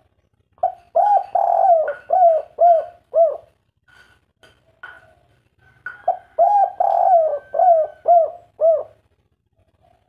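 Spotted dove cooing in the 'kuk 3' song type: two phrases of about six rounded coos each, a couple of seconds apart.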